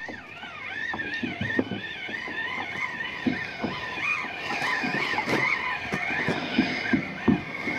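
RUNCL Titan II spinning reel being cranked to retrieve a hooked fish: a steady whine from the reel that wavers up and down in pitch with the turning of the handle, over a few soft low knocks.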